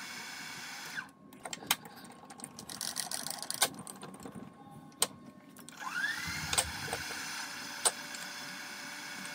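Milling machine spindle motor running steadily. It cuts off abruptly about a second in, and then comes a few sharp clicks. About six seconds in, the motor spins up with a rising whine and then runs steadily again.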